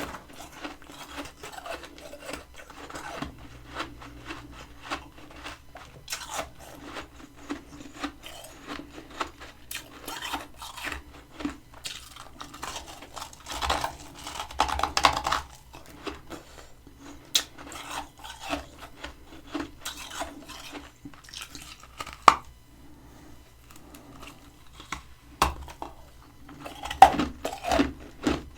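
Close-miked crunching and scraping of freezer frost being eaten: many short crisp crackles, with a louder stretch of crunching about halfway through and a single sharp click later on.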